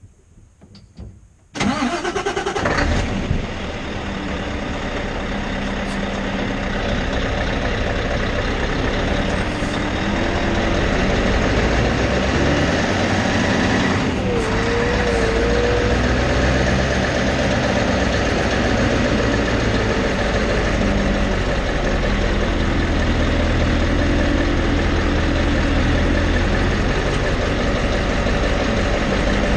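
Scania truck's diesel engine starting with a sudden burst about a second and a half in, settling, then running steadily as the truck pulls away, heard from down beside the front wheel. There is a short sharp click about halfway through.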